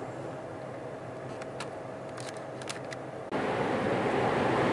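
Steady driving noise inside a moving truck's cab, engine and road, with a few faint irregular clicks. About three seconds in it jumps suddenly to louder road and wind noise.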